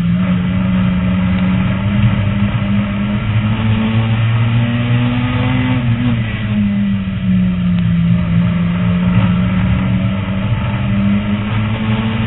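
Lightning Rod race car's engine heard from inside the cockpit, running hard around the track. Its note climbs slowly, drops about six seconds in as the driver lifts, then climbs again near the end.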